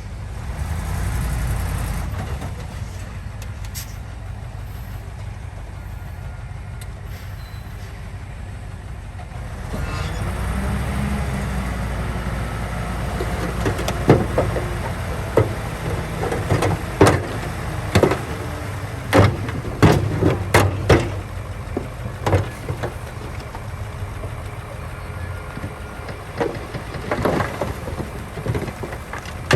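Komatsu D41P bulldozer's diesel engine running steadily, getting louder about ten seconds in, with a run of sharp, irregular clanks and knocks through the second half.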